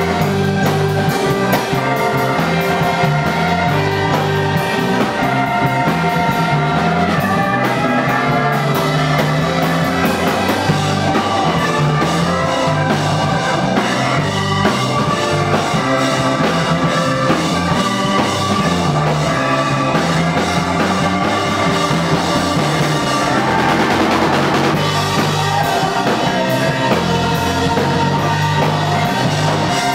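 Live rock band playing: drum kit, electric bass guitar and keyboards in a steady groove.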